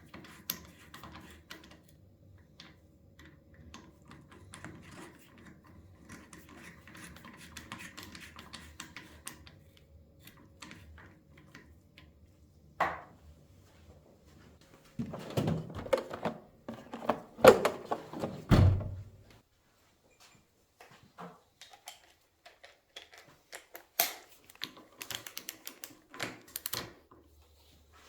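Clicks and knocks of small parts being handled on a workbench. There is a run of louder knocks and clatter about halfway through, and another quick run of clicks near the end.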